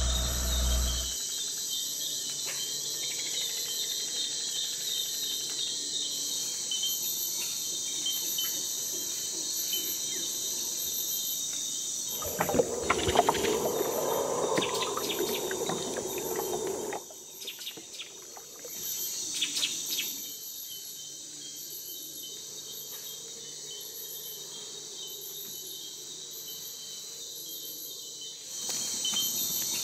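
Steady, high-pitched insect chorus with a faster pulsing buzz above it. About halfway through, a louder, noisier stretch with clicks and knocks lasts around five seconds.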